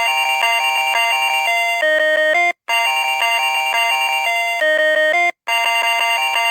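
Snoopy R725 melody alarm clock playing its electronic alarm tune: bright, chime-like synthesized notes in short repeating phrases, with a brief cut to silence twice.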